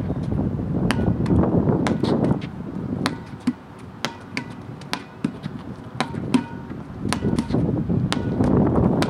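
Rubber playground ball bouncing on concrete and being slapped by hands in a four-square rally: a quick run of sharp smacks every half second or so, some with a brief hollow ping. Wind rumbles on the microphone at the start and again near the end.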